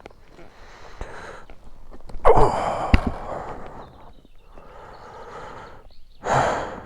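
A rider's heavy sighing exhales: a loud one a little over two seconds in and another near the end, with softer breaths between and a couple of short knocks.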